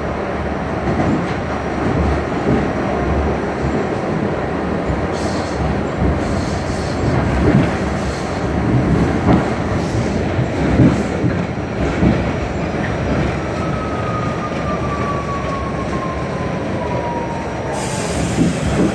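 Kawasaki R68A subway car running and slowing into a station, heard from inside: steady rumble of steel wheels on rail with repeated clicks over rail joints. From about two-thirds in, a falling whine as the train brakes, with a brief hiss near the end.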